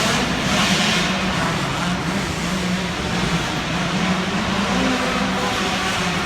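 Dirt bike engines running steadily on an arenacross track, a continuous engine drone without clear revving.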